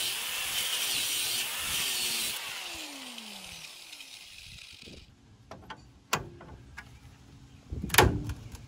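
Angle grinder with a part-worn cutting disc cutting into a seized steel shock bolt for about two seconds, then switched off and spinning down, its pitch falling. After a quiet spell come a few clanks and, near the end, a loud sharp crack, a 'breaky sound', as the rubber of the shock's lower bushing tears loose from its outer sleeve.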